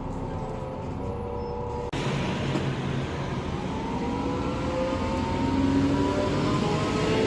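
Volvo B9TL double-decker bus heard from on board: engine and drivetrain hum with a whine over it. After a sudden break about two seconds in, the whine rises slowly and grows louder as the bus gathers speed.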